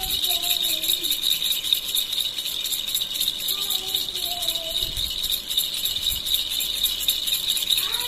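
Plastic baby rattle (jhunjhuna) shaken continuously by hand: a fast, steady jingling rattle.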